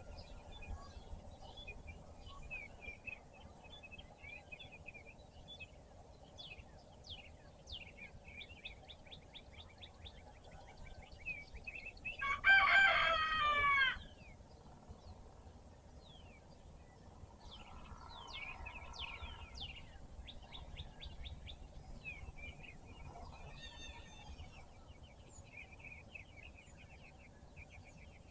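A rooster crows once, loud, about twelve seconds in, its call falling in pitch at the end. Small songbirds chirp throughout in quick, falling notes, with a fainter lower call a few seconds after the crow.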